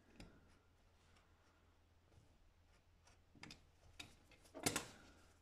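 A few faint, sparse clicks and scrapes of a utility knife trimming a paper gasket on a workbench, the loudest tap near the end.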